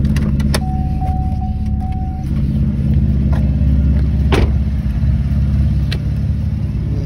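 2010 Chevrolet Camaro LT's 3.6-litre V6 idling steadily. A brief steady tone sounds from about half a second to two seconds in, and a few sharp clicks and knocks come on top.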